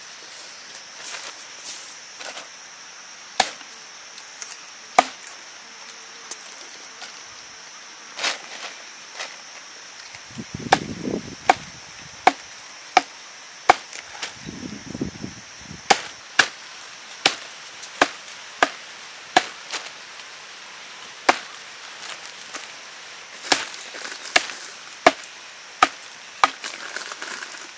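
Chopping with a blade onto wood: about twenty sharp, separate strikes at an irregular pace, often in runs about half a second to a second apart, with a few longer pauses.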